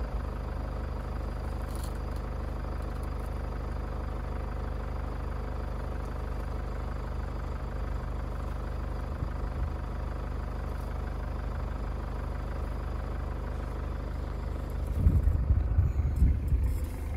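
Safari vehicle's engine idling steadily with a low hum. Near the end, a louder, uneven low rumbling comes in.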